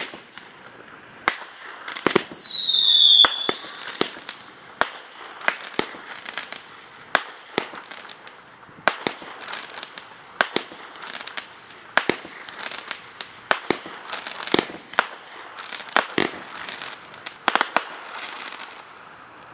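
Fireworks going off: a long series of sharp bangs, roughly one a second, with crackling between them. About three seconds in, a loud whistling firework sounds briefly, falling slightly in pitch.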